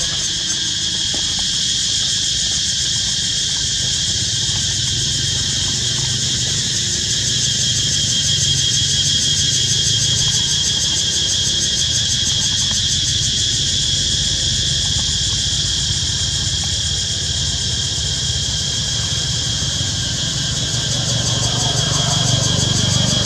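A loud, steady chorus of insects shrilling, with a low motor-like rumble underneath that grows a little louder near the end.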